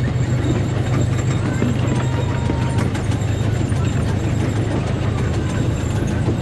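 Amusement-park train running along its track, heard from an open passenger car: a steady low engine drone under the rumble and rattle of the cars on the rails.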